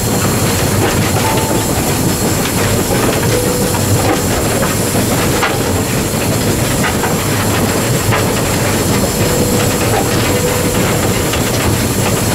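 Ng15 two-foot gauge steam locomotive running with its train: a steady mix of wheel-on-rail clatter and steam hiss.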